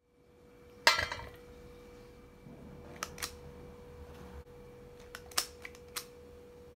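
Metal clinks and clicks of a squeeze-trigger ice cream scoop working and knocking against a stainless steel blender jar, with one sharp ringing clank about a second in. A faint steady hum runs underneath.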